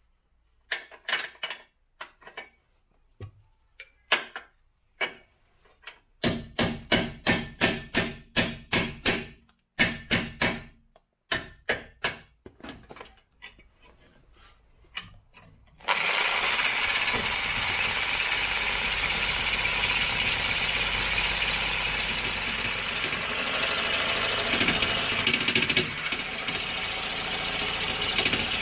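Impact wrench working on suspension bolts: first triggered in a quick series of short bursts, about three a second, then hammering continuously for more than ten seconds from about halfway in.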